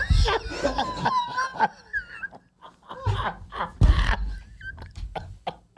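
A man mimicking high-pitched whimpering and moaning, as a run of short, wavering cries with brief breaks between them.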